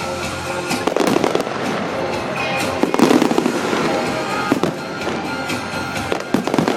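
Fireworks bursting, with several sharp bangs (about one, three, four and a half and six and a half seconds in) over continuous crackling. A song plays underneath.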